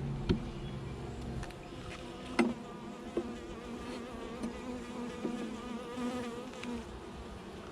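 Honeybees buzzing around an open hive, a dense hum of many wingbeats that wavers in pitch. A couple of short sharp knocks cut through it, one right at the start and one about two and a half seconds in.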